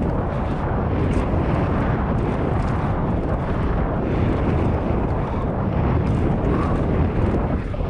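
Steady rushing wind on the camera microphone mixed with the rumble of knobby tyres rolling over a dirt trail, as an enduro mountain bike descends at speed.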